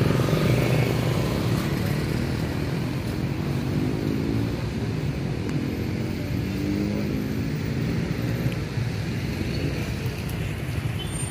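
Motorcycle and car traffic on a city street: a steady low rumble of engines, with engine notes rising and falling as vehicles pass.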